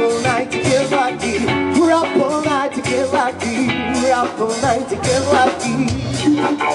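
Live rock band playing through a stage PA: electric guitar, bass guitar, keytar and drum kit, with a singer.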